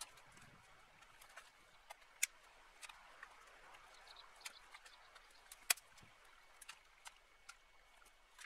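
Dry brush and dead branches crackling and snapping as they are pulled, broken and trodden on, with two sharp cracks, about two seconds and five and a half seconds in.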